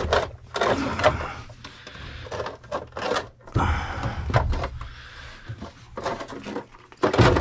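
Irregular knocks, clicks and rustling as a plastic condensate pump and its vinyl drain tube are handled and shifted by hand.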